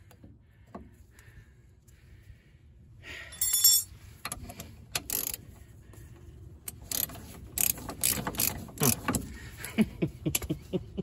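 Ratchet wrench clicking in quick, irregular runs with metal tools clinking, starting about three seconds in, as a suspension fastener is worked loose.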